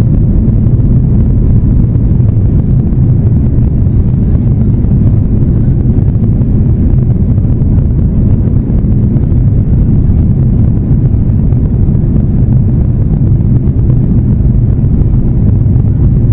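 Boeing 737 MAX 8's CFM LEAP-1B jet engines and rushing air heard inside the cabin: a loud, steady, deep rumble at departure thrust.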